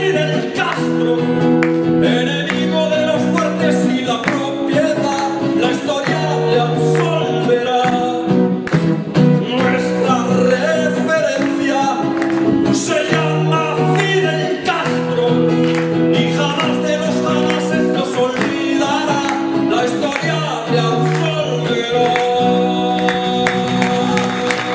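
Acoustic guitar strumming a repeating chord pattern, with a man's singing voice at times. Applause begins to rise near the end as the song closes.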